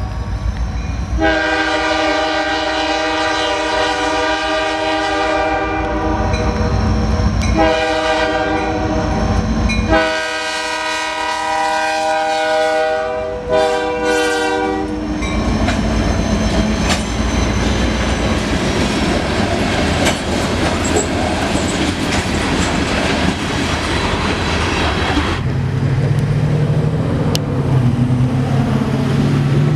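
Diesel freight locomotive's multi-chime air horn sounding four blasts for a grade crossing, the last one short. Then the locomotives and freight cars roll past with wheels clacking over the rail joints. About 25 seconds in this gives way to a lower, steady rumble of the train moving away.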